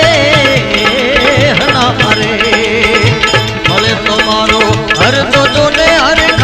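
Instrumental passage of a Gujarati devotional folk song (bhajan): a wavering, ornamented melodic lead over a steady hand-drum beat.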